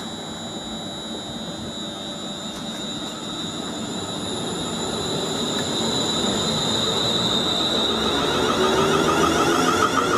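Class 350 Desiro electric multiple unit pulling away and accelerating, its traction equipment giving steady high whines. It grows louder, and in the last couple of seconds a rising whine comes in as the train gathers speed past the platform.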